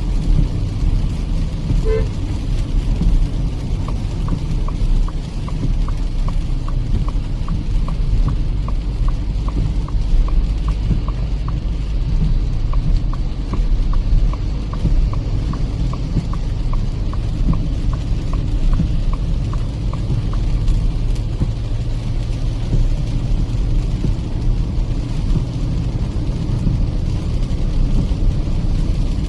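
Inside the cabin of a Kia Seltos petrol manual on the move: steady engine and tyre rumble on a wet road. From about four seconds in until about two-thirds of the way through, the turn signal ticks evenly about twice a second, then stops.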